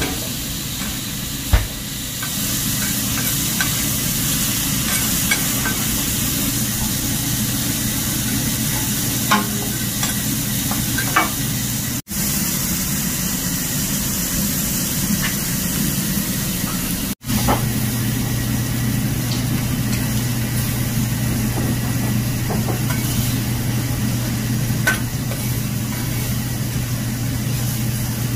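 Food frying in hot oil: a steady sizzling hiss with a low hum under it and a few light clicks. The sound cuts out briefly twice, and the hum is stronger after the second cut.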